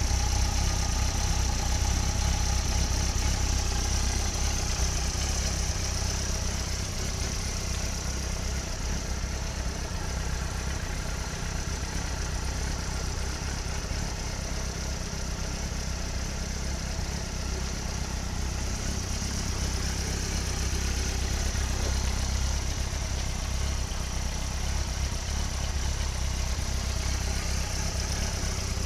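2001 Yamaha FZ1's inline-four engine idling steadily through a Yoshimura RS-1 aftermarket exhaust, with no revving.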